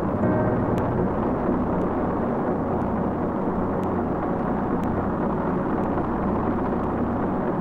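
Saturn V rocket lifting off: the steady, loud roar of its five first-stage F-1 engines, with a deep rumble underneath and a few faint clicks.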